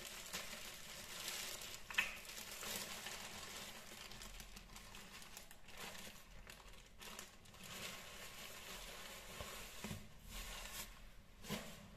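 Thin plastic bag crinkling and rustling as raw shrimp are shaken out of it into a bowl of water, with a sharp tick about two seconds in and a few small clicks near the end.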